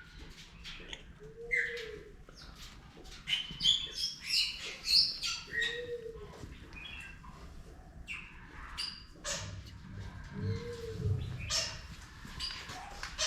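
Several different birds chirping and calling over one another in quick, high, overlapping notes. Beneath them, a lower rounded call rises and falls the same way three times, about every four and a half seconds.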